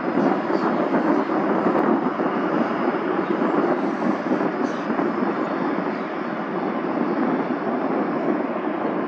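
Boeing 767-200 airliner taxiing past with its two jet engines at low power: a steady, even rush of engine noise.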